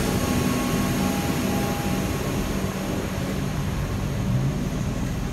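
Comeng electric multiple-unit suburban train pulling away along the platform: wheels rumbling on the rails under the steady hum of its traction motors, fading slowly as it moves off.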